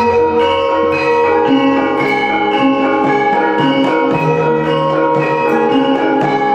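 Javanese gamelan playing a lancaran: bronze bonang pot gongs and other struck bronze instruments ring in a steady, repeating pattern over sustained low tones.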